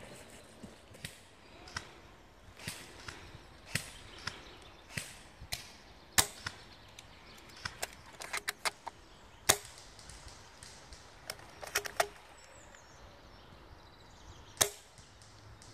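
Airsoft guns firing in a firefight: irregular single sharp snaps, with quick runs of several shots about eight and a half seconds in and again around twelve seconds.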